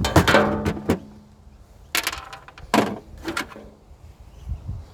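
Parts of a disassembled electric chainsaw being handled: a quick run of sharp plastic and metal knocks and clatters about the first second, then single knocks every second or so.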